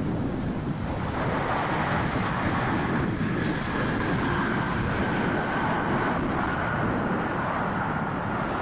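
Airbus A350-900's Rolls-Royce Trent XWB jet engines running as it lands, a steady roar with a faint whine that slowly drops in pitch. Low wind rumble on the microphone underneath.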